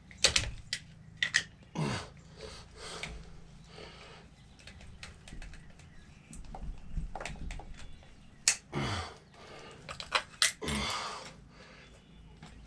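Scattered clicks, taps and knocks of hand tools and metal parts being handled, with a few short low murmurs from a person.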